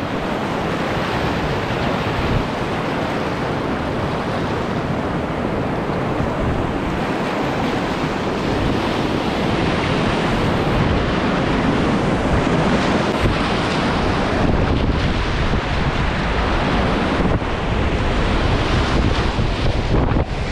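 Whitewater rapids rushing and churning around a kayak running through them, heard close from the boat, with wind buffeting the microphone.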